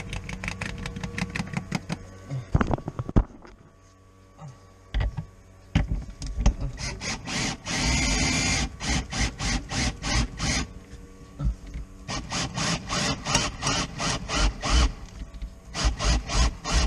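Cordless drill-driven wire-out tool winding cutting wire through the windshield urethane: bursts of rapid clicking that stop and start several times.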